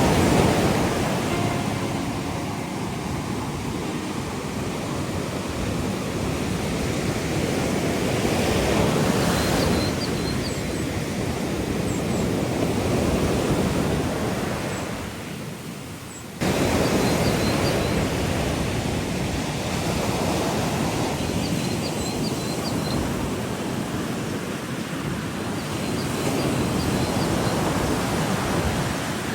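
Ocean surf washing ashore, a steady rushing that swells and eases every few seconds, with a few faint, short, high chirps now and then. Halfway through it fades down and cuts back in abruptly.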